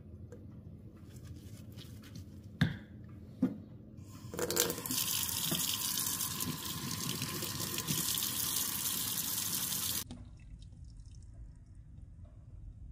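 Two sharp clicks, then a kitchen tap running hard into a stainless steel sink and over a fired clay pottery tile held under the stream. The water starts about four seconds in and cuts off abruptly near ten seconds.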